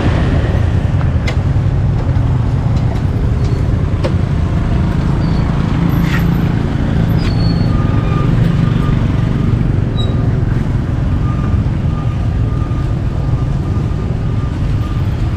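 Steady low rumble of street traffic, with motor scooters passing close by.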